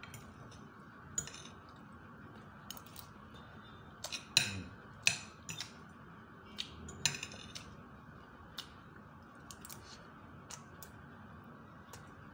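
Spoon and fork clinking and scraping against a plate in scattered sharp clicks, the loudest a little past four, five and seven seconds in, over a steady low hiss.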